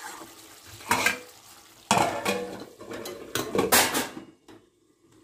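A metal spatula stirring chicken curry in a metal kadhai, scraping along the pan and knocking against its side several times, each knock a short ringing clang.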